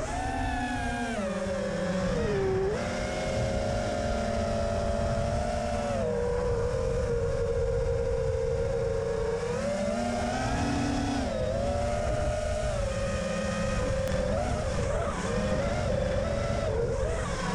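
Emax RS2205S brushless motors and propellers of a 5-inch FPV quadcopter whining in flight, the pitch dipping and rising several times as the throttle changes, over a rush of wind noise. Heard through the quad's onboard camera.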